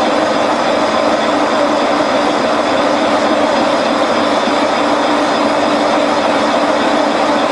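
A boring bar taking a light clean-up cut through the bore of a motor-mount casting, with the machine running steadily: an even mechanical whir with a few held tones.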